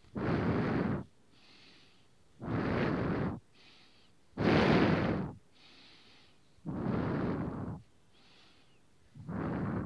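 A person breathing close to the microphone: five loud exhales about two seconds apart, each lasting about a second, with fainter inhales between them.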